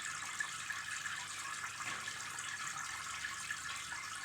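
Steady trickling and splashing of water from a home fish tank, likely its filter outflow.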